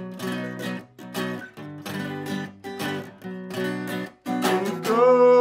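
Steel-string acoustic guitar strummed in a choppy rhythm, its chords cut short between strokes. A singing voice comes in on a held note near the end.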